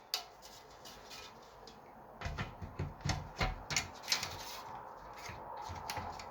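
Handling noise as a PC case side panel is fitted: a sharp click just after the start, then a cluster of light knocks and clicks for a couple of seconds in the middle, with rubbing between.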